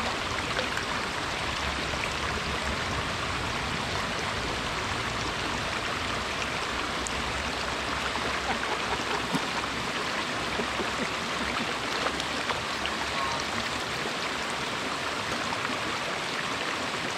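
Brook water running, a steady, even hiss.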